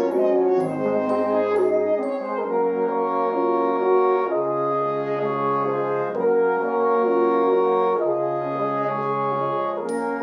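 A French horn ensemble playing sustained chords in close harmony over a low bass line, the chords shifting every second or two. Near the end, short bright high pings come in on the beat.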